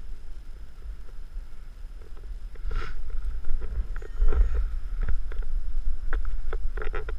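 Low rumble of handling and air noise on a body-mounted camera, with scattered crunches and rustles as a paraglider pilot sorts his lines and risers in gloved hands and steps on gravel. A flurry of rustling comes about three seconds in and again near the end.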